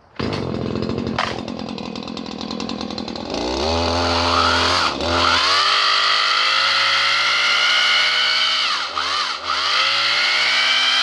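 Stihl KM94RC two-stroke multitool engine driving the chainsaw lopper attachment: it comes on suddenly and runs at a lower speed, then is revved up to high speed about three and a half seconds in and held there, with a couple of brief dips in revs near the end.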